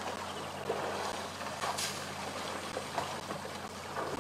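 African elephant herd drinking and wading in a shallow waterhole: water sloshing and splashing, with a few short splats, over a faint steady low hum.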